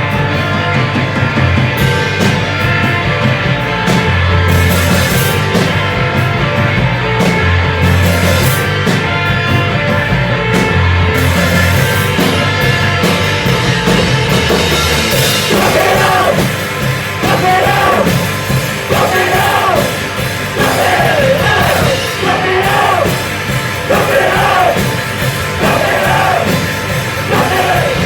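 Rock band playing live: bass, guitar and drums. About halfway through, a singer comes in with short, repeated vocal phrases over the band.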